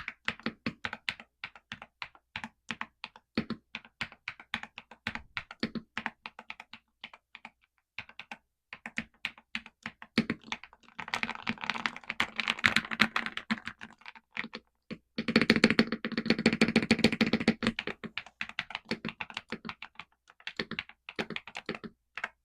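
Typing on a Galaxy 65 mechanical keyboard fitted with XVX Crystal Jelly OEM-profile keycaps. Separate keystrokes for the first half, then two fast runs of rapid typing, then slower keystrokes near the end.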